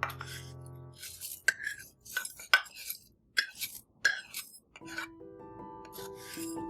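Background music drops out. For a few seconds there is a string of short clinks and scrapes of kitchen utensils against dishes, irregularly spaced. Then music starts again near the end.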